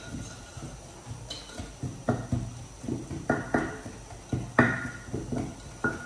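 Pestle pounding in a mortar: a series of sharp, irregular knocks that come faster from about two seconds in.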